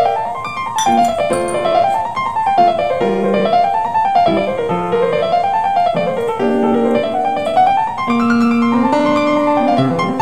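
Background piano music: quick notes running up and down in repeated waves over held lower notes.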